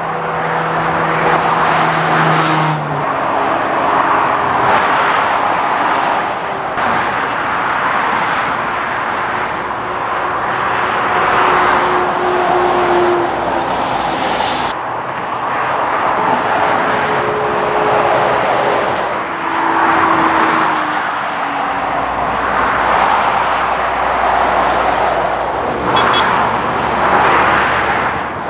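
Lorries and cars passing at speed: a continuous tyre and engine noise that swells and eases several times as each vehicle goes by.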